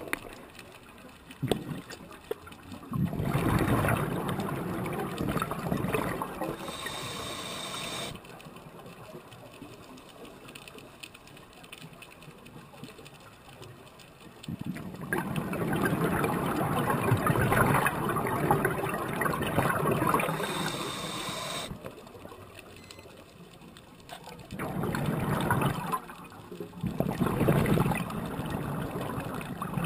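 Scuba diver breathing through a regulator underwater: exhaled bubbles come in three long bursts several seconds apart, with quieter stretches between.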